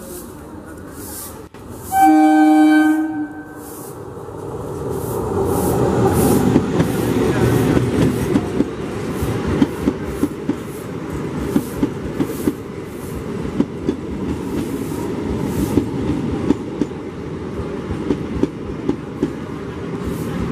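EMU electric local train sounding one horn blast about two seconds in, then running past close by with a heavy rumble, its wheels clicking over the rail joints at a steady pace.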